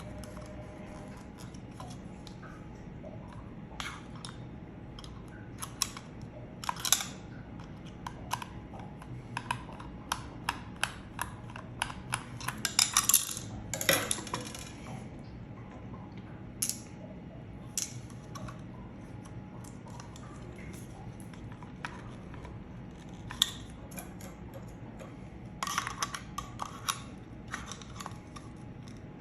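Plastic housing and small internal parts of a battery-powered soap dispenser being handled and pried apart: scattered clicks and knocks, with a denser patch of clattering around the middle.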